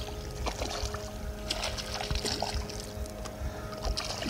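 Hooked speckled trout thrashing and splashing at the surface beside a kayak while fly line is stripped in by hand. The splashing comes in short bursts around the middle and again near the end, over a steady low hum.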